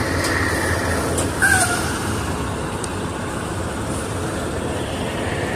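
Semi truck's diesel engine running with a low, steady rumble as the truck backs slowly into a parking space.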